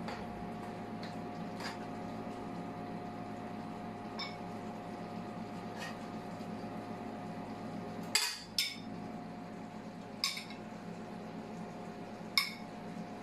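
A metal spoon clinking against a ceramic bowl, four sharp clinks that ring briefly in the second half, after a few light taps of the serving spoon while stew is ladled in. A steady hum runs underneath.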